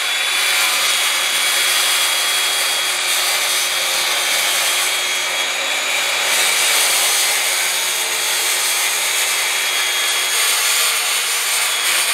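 Corded circular saw ripping lengthwise along a wooden post to cut off its corner, running steadily under load with a constant high motor whine.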